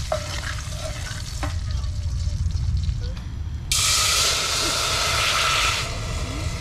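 Mongoose meat sizzling in hot ghee in a pan: faint crackling at first, then a loud sizzle that starts suddenly about halfway through and cuts off about two seconds later.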